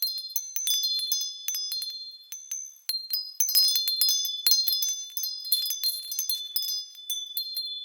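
Wind chimes struck irregularly, many quick high-pitched strikes whose tones ring on and overlap. Denser flurries come about three and a half seconds in and again around six seconds, and the strikes thin out near the end.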